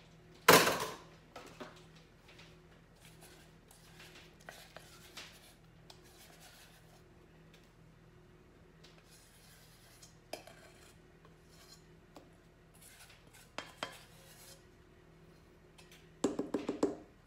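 Stainless-steel mixing bowl clanking loudly once about half a second in, followed by light scrapes and clinks, and near the end a quick run of rapid knocks as a spatula scrapes the batter out of the metal bowl.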